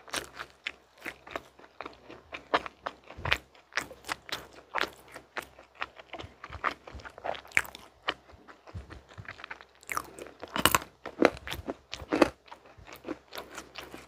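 Close-miked chewing of a mint-chocolate muffin: a bite at the start, then irregular soft crunches and wet mouth clicks, with a louder quick run of clicks about ten seconds in.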